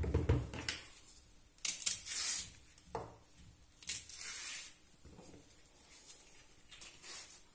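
Bananas being handled and broken off the bunch: a few short, soft rustling and tearing sounds, spaced a second or so apart.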